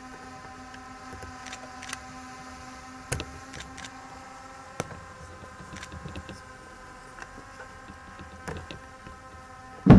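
A faint steady hum with a few scattered sharp clicks. Right at the end, ceremonial band drums strike up loudly.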